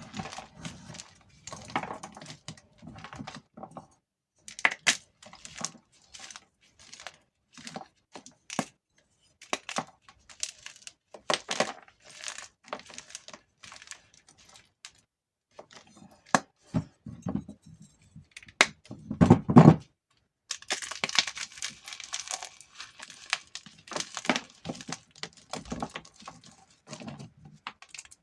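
Blocks of gym chalk being crushed between the fingers: irregular crisp crunches and crumbling. The loudest, heaviest crush comes about two-thirds of the way through, followed by a longer run of fine crumbling.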